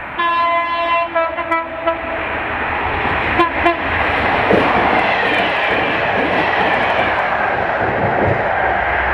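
Class 43 HST power car leading a Network Rail test train sounds its horn in a long blast of about two seconds, then a short toot about three and a half seconds in. It then runs through at speed, its engine and wheels swelling into a loud, steady rush as it passes.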